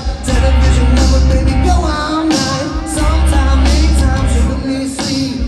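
Live rock band playing through PA loudspeakers, with a singer over heavy bass, drums and guitars.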